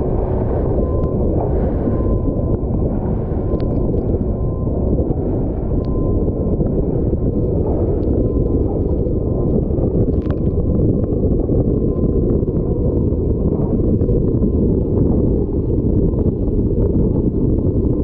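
Wind buffeting the microphone over a Stabicraft 2050 aluminium boat running at speed through choppy water, its outboard running under the steady rush of wind and water.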